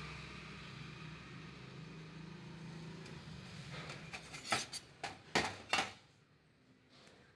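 A steady low hum, then three or four sharp metallic knocks close together about four and a half to six seconds in, from the welded sheet-steel hoe head being handled on a hard surface.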